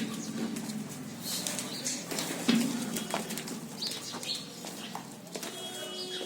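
Birds calling, with short low calls among scattered clicks and knocks.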